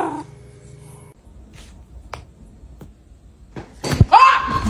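A few faint clicks, then near the end a loud, short cry that rises and falls in pitch.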